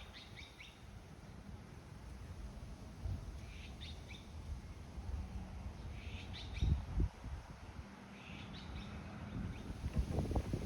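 Short high bird chirps in small clusters, about every two to three seconds, over a low wind rumble on the microphone.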